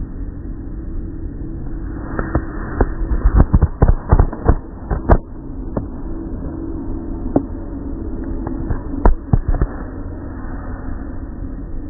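Automatic car wash heard from inside the car: a steady low rumble of the wash machinery, with a run of sharp slaps and thumps about two to five seconds in and a few more later as the wet, foam-soaked cloth strips beat against the car's body and glass.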